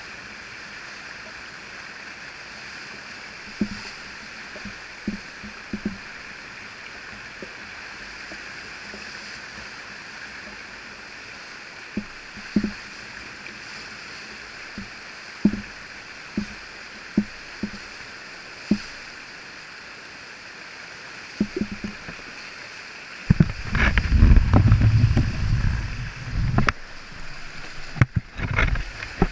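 Steady rush of whitewater pouring over a river standing wave, with scattered soft knocks. About 23 seconds in it turns to loud, low, churning splashing as the water buffets right against the microphone.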